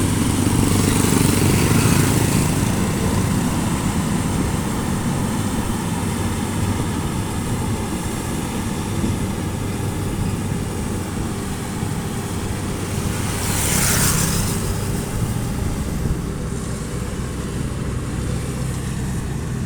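Rice combine harvester running steadily as it harvests a paddy plot: a continuous engine hum under the broad noise of the threshing machinery, with a brief hissing swell about two-thirds of the way through.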